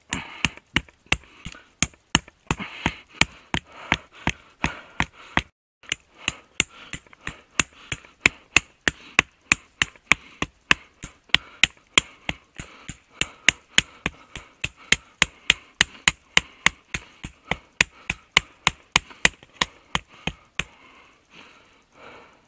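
A pocket knife blade hacking into the wood of a thick sapling: sharp, even chopping strikes about three a second, with a short pause about five seconds in, stopping near the end.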